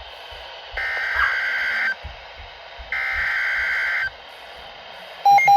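Two bursts of an Emergency Alert System SAME digital header from a weather radio, each a harsh two-tone warbling data squawk about a second long, a second apart. They announce the start of a new warning. Near the end a phone's Wireless Emergency Alert tone starts, a rapid loud pulsed beeping.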